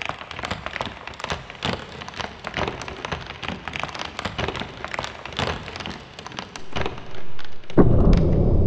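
Slowed-down sound of a giant steel drop hammer crushing wooden bowling pins: a long run of irregular cracks and snaps as the pins splinter, then near the end a loud, deep rumbling boom.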